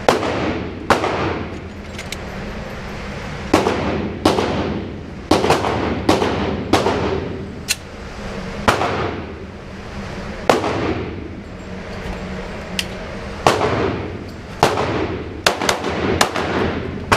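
9 mm Glock 19 pistol fired again and again, shots about a second apart at an uneven pace and coming quicker near the end, each crack echoing in the enclosed indoor range over a steady low hum.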